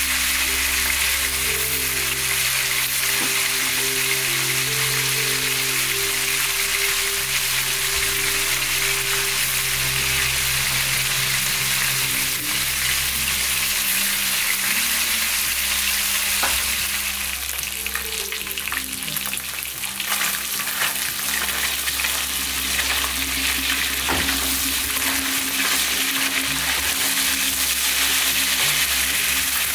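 Pieces of fish frying in hot oil in a pan: a steady sizzle.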